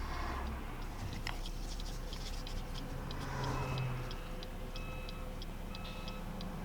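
A car's turn-signal indicator ticking at a steady, even rate, over the low hum of the car stopped and idling.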